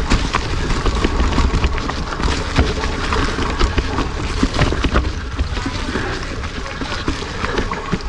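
Mountain bike rolling fast down a leaf-covered dirt trail: tyres crunching through dry leaves and over the ground, with frequent clicks and rattles from the bike, over a steady low rumble of wind on the microphone.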